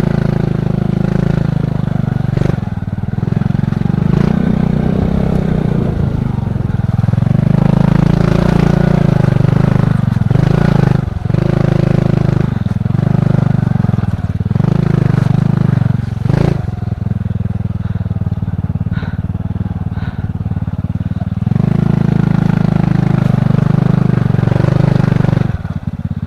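Single-cylinder Honda KPH 125 cc four-stroke engine of a trail-converted motorcycle running while being ridden, the throttle rising and easing off. Several sharp knocks and clatter come through over the engine, about a dozen times.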